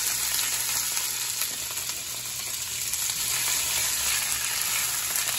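Broccoli florets sizzling steadily in hot olive oil with toasted garlic in a nonstick skillet, tossed in the pan near the end.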